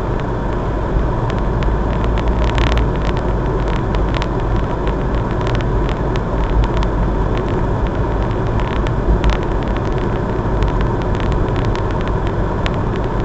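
Steady road and engine noise of a moving car, heard from inside the cabin: a low, even rumble with scattered light clicks.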